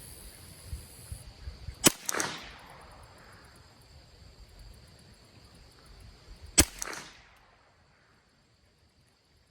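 Two shots from a Ruger 10/22 .22 LR rifle firing Remington Golden Bullet rounds, about five seconds apart, each followed by a short fading echo.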